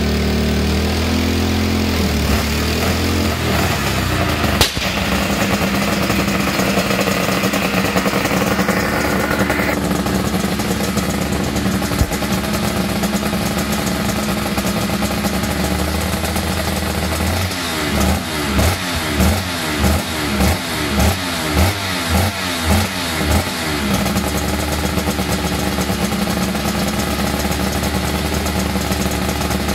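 Suzuki RGV500 V4 two-stroke Grand Prix engine running on a stand, idling with its pitch wavering at first. Partway through it is blipped about ten times in quick succession, roughly one and a half blips a second, then settles back to a steady idle.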